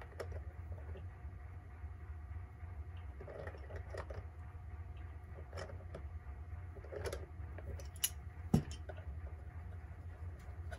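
Scattered small clicks and knocks of vise-grip pliers working the set-knob stem of a 1930s Telechron Selector clock, turned to unscrew the left-hand-threaded knob, with a sharp knock about eight and a half seconds in. A steady low hum runs underneath.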